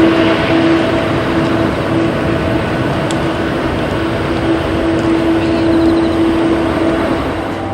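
Jet airliner passing low overhead, its engine noise with a steady hum slowly fading as it moves away.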